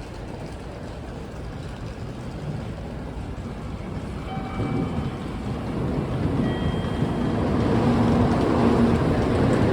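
N700A Shinkansen train running into the station, its rumble and rush growing steadily louder as it approaches, with a few faint whining tones about halfway through.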